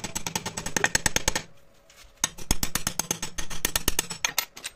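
Rapid metallic clicks or strokes of a hand tool working the edge of a steel disc, about ten a second, in two runs with a short pause between them.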